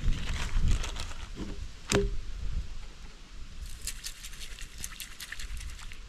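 Wind buffeting the microphone with a low rumble, then a single sharp clink from the cooking gear about two seconds in. After that come faint, scattered crackling ticks.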